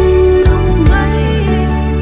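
Instrumental gospel backing track: held chords and bass with a few drum hits.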